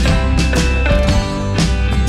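Background music with a steady drum beat and a sustained bass line.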